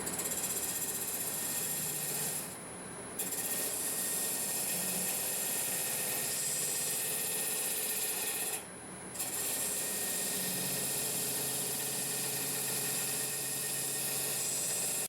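A turning tool cutting the spinning Osage orange birdhouse on a wood lathe: a steady hissing scrape of the edge shaving wood, broken off twice for about half a second as the tool comes away from the wood.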